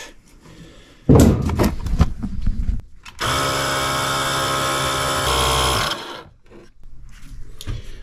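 A few knocks and rattles of handling, then a cordless tire inflator runs steadily for nearly three seconds, pumping air into a re-beaded tubeless hand-truck tire, and cuts off.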